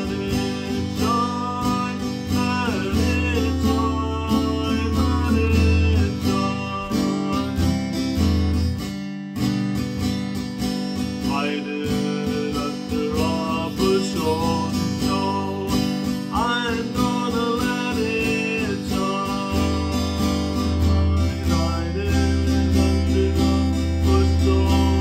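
Acoustic guitar strummed steadily, with a man's voice singing along.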